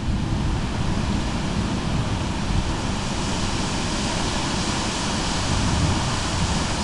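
Steady, even rushing noise of a thunderstorm, heaviest in the low end, with no single crash or clap standing out.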